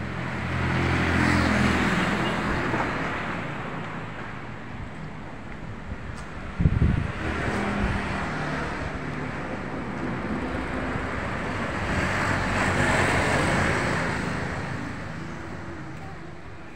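Road traffic passing close by: one vehicle swells and fades in the first few seconds and another about twelve seconds in. A brief, loud low thump comes about halfway through.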